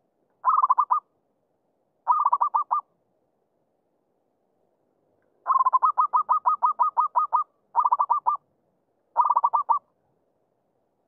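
Zebra dove (merbuk) singing its rapid, clipped cooing song: five bursts of quick repeated coo notes. The middle burst is the longest, running to over a dozen notes.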